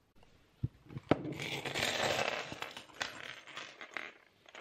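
Handling noise from the camera being grabbed and moved: two knocks about half a second and a second in, then rubbing and rustling with scattered clicks that fade toward the end.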